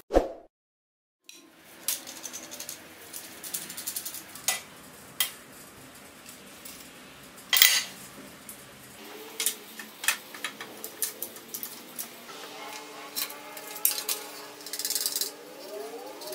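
Sharp metallic clicks and clinks of a homemade steel clamp being handled on a steel workbench, with one loud clank about seven and a half seconds in. From about twelve seconds a steady low hum joins, and near the end rising tones join it.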